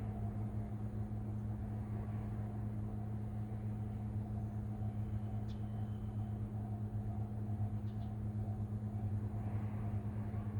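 A vehicle's steady low mechanical hum and rumble, holding one even drone with no rise or fall.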